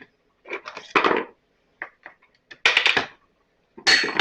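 Knocks and clatter of blower parts and hand tools being handled and set down on a workbench, in several short bursts, during disassembly of a backpack blower.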